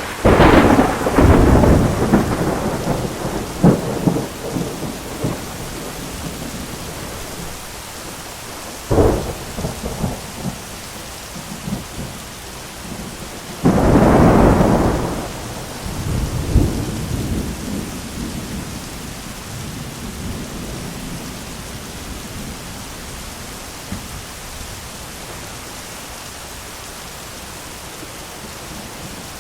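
Thunderstorm: steady rain with three peals of thunder. A sharp crack right at the start rolls on in rumbles for several seconds, a shorter clap comes about nine seconds in, and a long, heavy rumble starts about fourteen seconds in and dies away by about twenty seconds.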